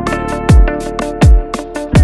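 Electronic background music with a steady beat: a deep kick drum that drops in pitch lands about every three quarters of a second, with crisp percussion hits between and sustained synth chords.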